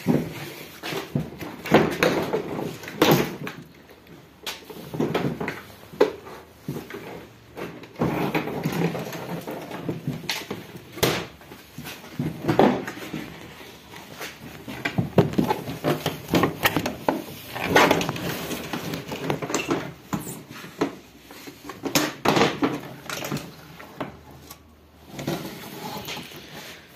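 Irregular plastic knocks, clicks and rattles as the plastic top cover of a twin-tub washing machine is unscrewed and lifted off.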